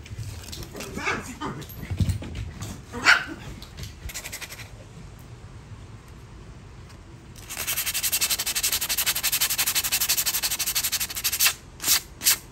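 A dog barks a few times, then a hand file rasps steadily along the steel of a Husqvarna axe head for about four seconds in the second half, breaking into several separate strokes near the end.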